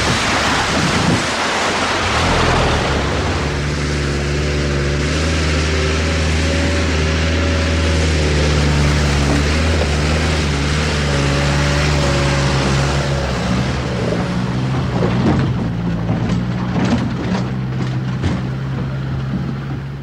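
Army Land Rover Perentie four-wheel drive driving on a rough dirt track: its diesel engine running steadily, the pitch shifting up and down with speed, over tyre and gravel noise. A few sharp knocks and rattles from the bumpy track come near the end.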